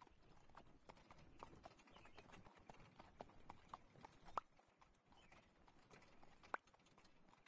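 Faint, irregular clip-clop of horse hooves drawing a carriage, with two sharper clicks standing out, one a little past the middle and one near the end.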